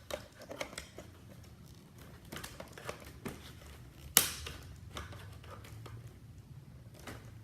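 Scissors cutting open a cardboard toy box: scattered small snips, clicks and rustles, with one sharp snap about four seconds in.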